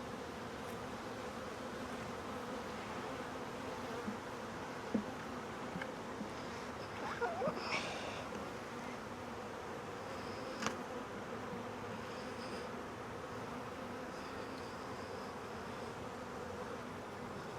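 Steady hum of a mass of honeybees buzzing around an opened nuc during a frame inspection, with a few light knocks scattered through it.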